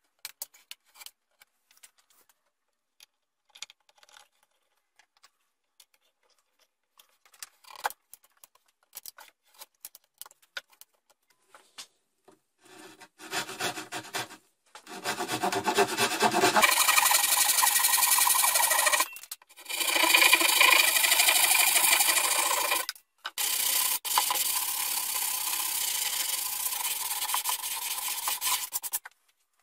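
A hand sanding block rubbed along the edge of a wooden panel: loud, even rasping in long stretches broken by brief pauses, starting a little under halfway in. Before that, only faint small knocks and handling sounds.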